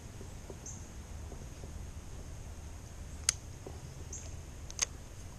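Quiet lakeside ambience: a faint steady high-pitched drone of insects over a low rumble, a few short high chirps, and two sharp clicks, one about three seconds in and one near the end.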